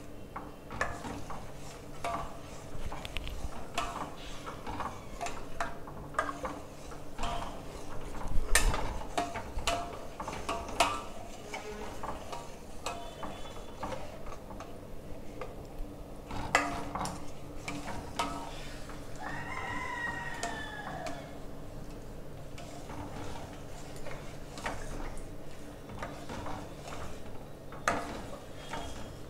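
A steel ladle scraping and knocking against a stainless steel pot, stirring a thick rice-flour porridge, in an uneven run of clicks and scrapes. About twenty seconds in, a short rising-and-falling call sounds in the background.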